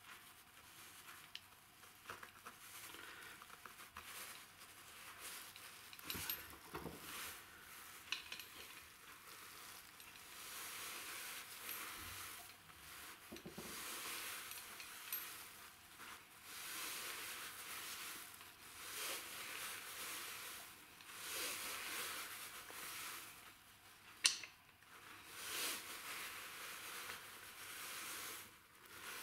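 Small steel spanners worked on two nuts locked against each other on a threaded rod: faint metallic scraping and clinking, with a couple of sharper clicks about three-quarters of the way through.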